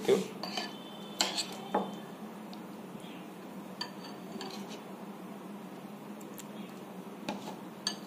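Steel spoon stirring thick gram-flour batter in a glass bowl, with scattered light clinks of the spoon against the glass at irregular moments, over a faint steady hum.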